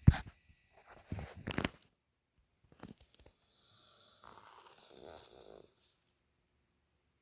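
Dog snoring: a sharp, loud snort at the start, two or three more snores over the next two seconds, a short one near three seconds, and a softer, longer breath from about four to five and a half seconds in.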